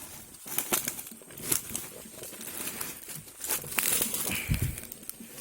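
Leaves, twigs and vines rustling and crackling in irregular snaps as forest undergrowth is handled, with a dull thump about four and a half seconds in.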